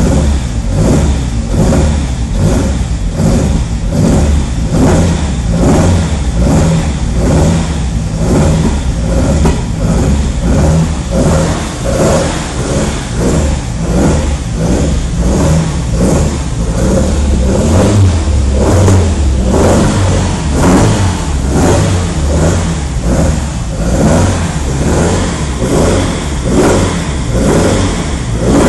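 1965 Alfa Romeo Giulia Sprint GT's twin-cam four-cylinder engine running at a fast idle of about 1,800 rpm while it warms up, heard from inside the cabin. The note swells and dips evenly about twice a second.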